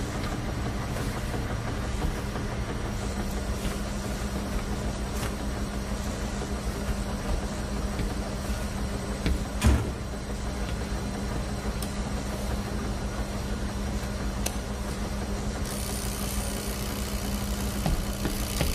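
Laundromat washing machines running together: a steady mechanical hum and rumble, with scattered light clicks and one loud thump about ten seconds in.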